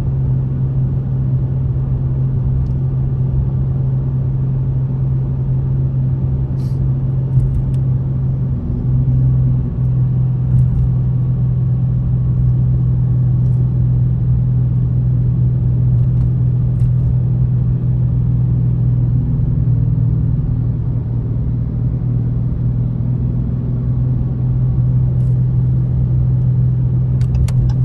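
Steady low rumble of a car driving, heard from inside the cabin: engine and road noise as one constant drone, with a few faint clicks.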